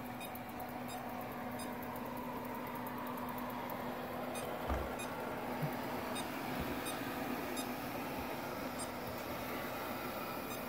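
iLife A4s robot vacuum running on an area rug, its suction motor and brushes making a steady hum as it sweeps up scattered rice and oats. There is a single soft knock about halfway through.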